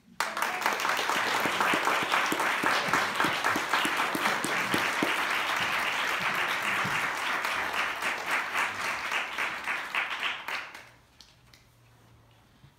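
Audience applauding, starting suddenly and dying away about eleven seconds in.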